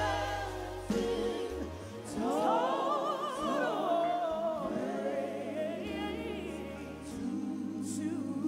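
Live gospel singing by women, more than one voice, with wide vibrato and a phrase that swells up about two seconds in, over held low accompaniment notes.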